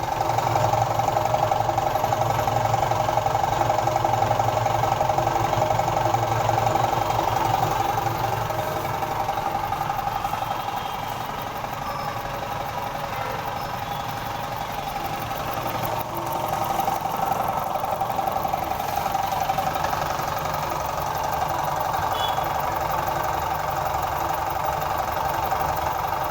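Belt-driven two-cylinder piston air compressor running steadily, its pistons chugging, a little quieter for a few seconds midway.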